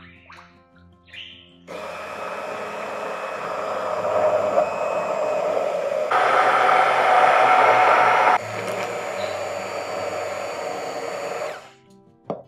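A small electric kitchen appliance motor, blender or mixer type, switches on and runs for about ten seconds. It steps up to a louder, higher speed for about two seconds in the middle, drops back, and cuts off sharply near the end.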